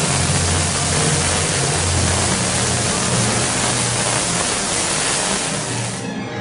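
Tesla coil arcing: a loud, steady hissing buzz from its spark discharge, cutting off suddenly near the end as the coil is switched off, with orchestral music underneath.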